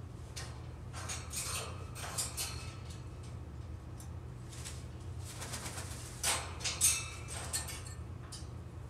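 African grey parrot making scattered short clicks and brief calls, mixed with taps of its beak and feet on the metal cage. Two of the sounds, a little after six seconds in, are louder and sharper than the rest.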